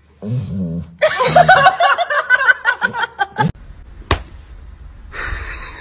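A person laughing hard in quick, high-pitched giggles for about two seconds, followed after a break by a single sharp click.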